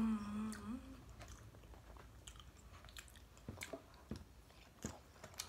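A short hummed "mmm" in the first second, then scattered soft clicks and mouth sounds as mac and cheese topped with crushed hot Cheetos is forked from a foil tray, bitten and chewed.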